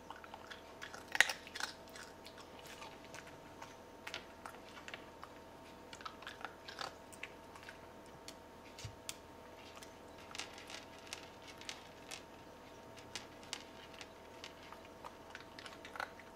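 Maltese dog crunching pieces of dry kibble, in short irregular bites with pauses between them; the loudest crunch comes about a second in.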